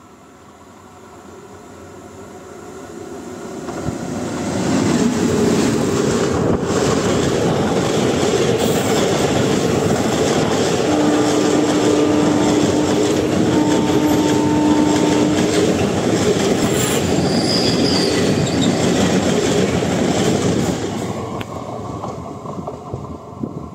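Indian Railways express train, hauled by an electric locomotive, approaching and passing at speed: the wheel and coach noise rises over the first four seconds, stays loud while the coaches go by, with a few seconds of steady wheel squeal in the middle, then fades as the train recedes.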